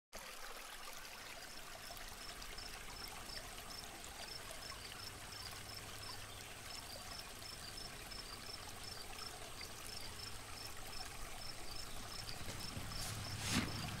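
Faint, steady trickle of running water, with a short high chirp repeating about three times a second in runs. A few louder rushes of noise come near the end.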